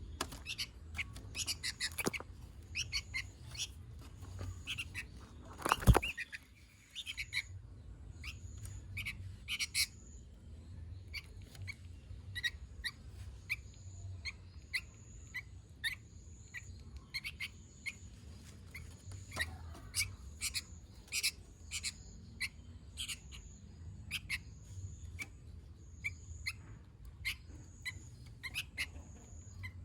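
Sooty-headed bulbul (kutilang) calling busily in quick, sharp chirps. A loud knock comes about six seconds in. Through the second half a thin high note repeats about once a second under the chirps.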